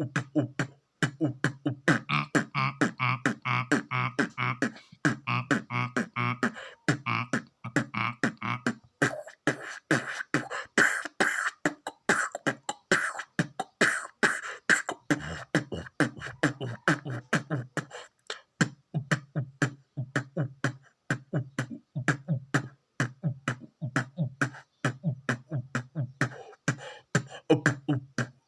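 Vocal beatboxing imitating a drum kit: a quick, steady rhythm of mouth-made kick, snare and hi-hat hits, with a low hummed tone under it in some stretches.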